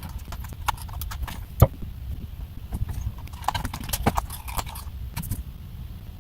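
Irregular small clicks and taps of a plastic car instrument cluster being handled while its gauge needles are worked off, over a low steady rumble.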